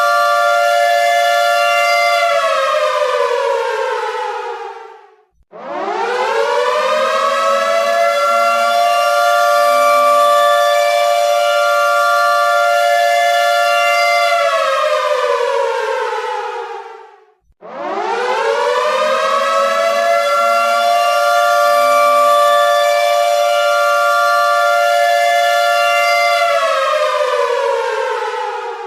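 Air raid siren wailing in repeated cycles. A held steady tone slides down in pitch and dies out a few seconds in. The siren then winds up to a steady pitch, holds it for several seconds and winds down again, and does this twice. Two close pitches sound together throughout.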